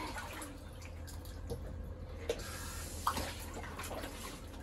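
Water splashing and sloshing in an inflatable paddling pool as children move their hands and legs in it, with a couple of sharper splashes past the middle.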